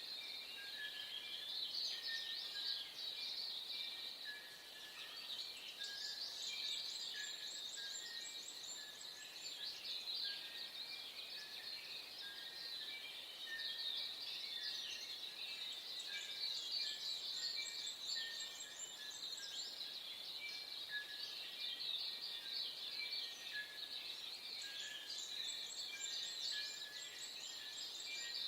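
Dawn chorus of many songbirds: a dense, continuous mix of overlapping chirps, trills and short repeated notes.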